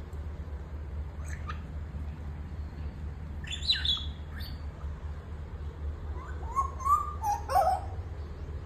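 African grey parrot giving short whistles and chirps in scattered bouts: a brief call about a second in, falling whistles around four seconds, and a run of warbling notes near the end. The owner takes this call as the bird asking for attention, perhaps feeling lonely. A steady low hum runs underneath.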